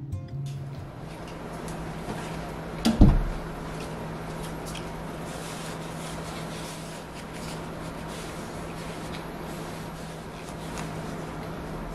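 Room tone with a steady low hum, and a single heavy knock about three seconds in.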